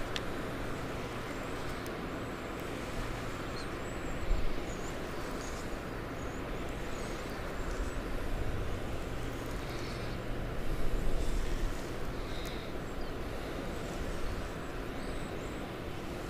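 Steady low outdoor rumble with wind buffeting the microphone in gusts around four and eleven seconds in, and faint high chirps scattered through.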